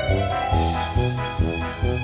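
Background music with a steady, quick beat and a rising tone about half a second in.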